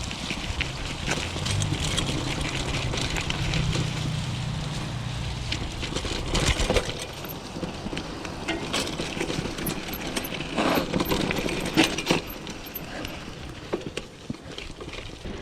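Mountain bike being ridden over trail and gravel: continuous tyre and riding noise with the chain and frame rattling, and a few sharp knocks from bumps in the second half.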